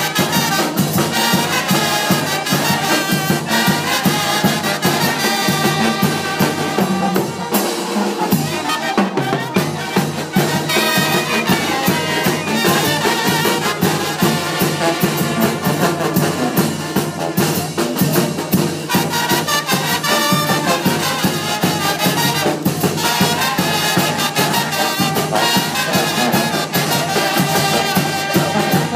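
Brass band playing dance music for the procession's dancers, brass over a steady beat.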